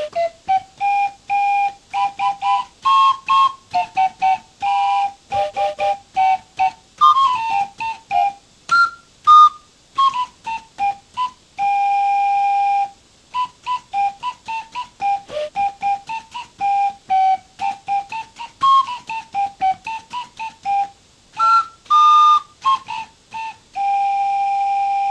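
Paper organ, an organ built entirely of paper with paper pipes blown by air from a large balloon, playing a quick tune of short notes, mostly single ones with a few two-note chords, with a held note about halfway through and another held note near the end.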